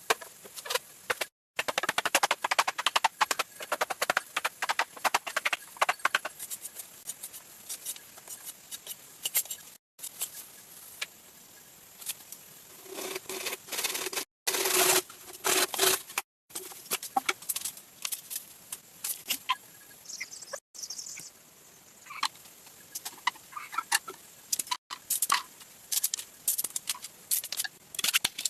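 Poultry calling amid many short clicks and taps, broken by several abrupt cuts to silence.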